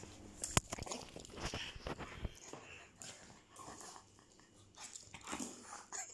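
A French bulldog at play: scuffles and clicks of its claws on a tile floor and the rustle of a plush toy being grabbed. A sharp knock comes about half a second in, a flurry of clicks follows over the next two seconds, and scattered scuffs come after.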